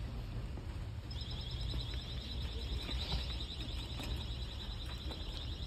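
A high-pitched electronic alarm starts about a second in and keeps sounding as a rapid, even pulsing beep, over the low rumble of the phone being handled.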